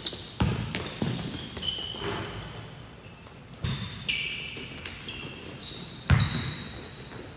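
Basketball pickup game: a ball bouncing on the gym floor in separate thuds, the hardest about six seconds in, with short high sneaker squeaks as players cut and stop.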